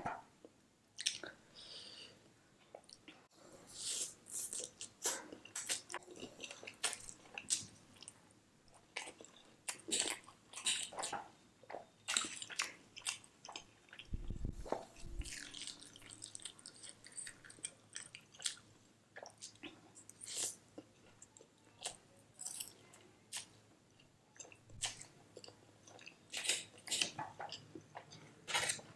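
Close-miked chewing of spicy noodles, many short wet mouth noises following one after another, with a brief low thud about halfway through.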